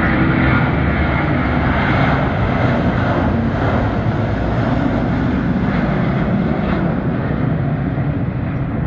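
Airbus A330-300 twin-jet on takeoff, its two Pratt & Whitney PW4000 turbofans at takeoff thrust as it lifts off and climbs away. A loud, steady jet-engine rumble that eases slightly near the end.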